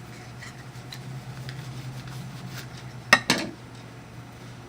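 Two sharp clicks about three seconds in, a fraction of a second apart, of small hard objects being handled or set down on a table, over a steady low hum and faint rubbing.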